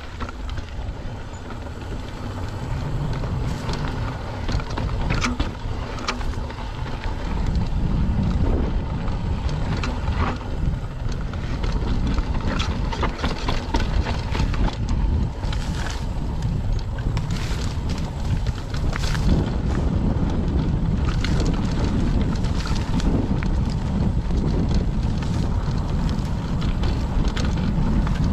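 Wind rushing over a GoPro microphone with the rumble of mountain bike tyres rolling on a dirt trail, growing louder over the first several seconds, with frequent short clicks and rattles from the bike.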